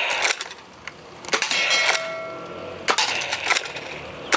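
A few sharp knocks and clatters. The loudest, about a second and a half in, rings briefly with a clear metallic tone, like a clang.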